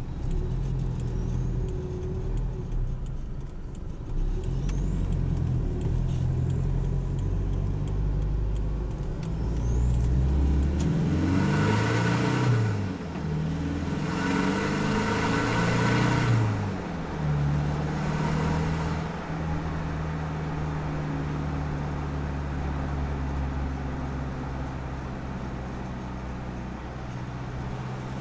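Isuzu KB300's 3.0 turbo-diesel engine and stock exhaust, heard from beneath the pickup while driving. Its pitch climbs twice near the middle under acceleration, with a drop in between and a rushing hiss during the climbs. It then settles into a steady drone.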